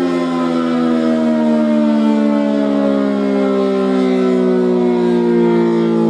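ACA Allertor 125 rotating outdoor warning siren sounding a loud, steady multi-note tone, its pitch slowly falling throughout.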